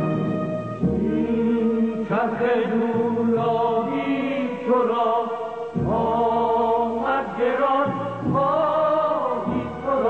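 A male singer performing a Persian song, holding long wavering notes and sliding between pitches, over instrumental accompaniment.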